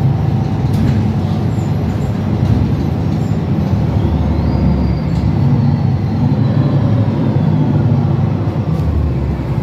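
Mercedes-Benz Citaro city bus driving along, heard from inside the passenger cabin: a steady low drone of engine and road noise.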